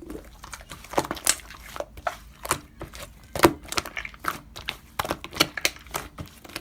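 Slime being worked by hand, giving irregular sharp clicks, pops and crackles several times a second.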